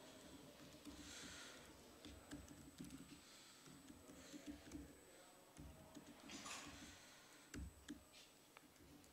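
Faint typing on a laptop keyboard: scattered, irregular key clicks, with a couple of short, soft rushes of noise, one about a second in and one near the end.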